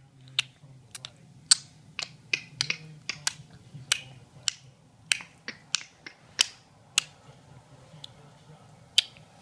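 A person making a string of sharp clicking noises, about two a second at an uneven pace.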